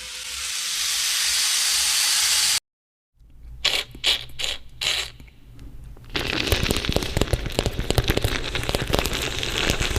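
Foley and beatbox sound effects: a hiss swells and cuts off abruptly, then a few sharp clicks are followed by a dense crackling rattle.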